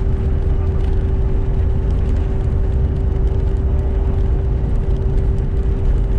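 Steady cabin noise inside a CRJ-900 regional jet. Its rear-mounted turbofan engines are running, with a deep rumble and a constant hum.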